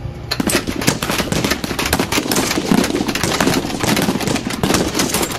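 Rapid automatic gunfire, one long unbroken burst of fast shots that starts suddenly about a third of a second in.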